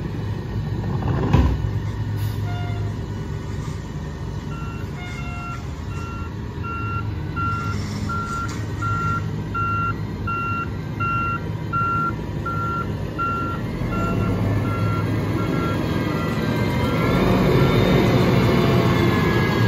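Backup alarm on a natural-gas Mack MRU McNeilus rear-loader garbage truck, beeping steadily about once every 0.7 s over the truck's engine running, with a thump about a second in. Near the end the beeping stops and the engine revs up and grows louder as the truck moves off past the microphone.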